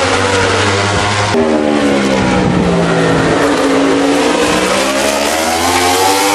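MotoGP racing motorcycle engine at high revs. About a second and a half in, its pitch falls for over a second, then climbs steadily again.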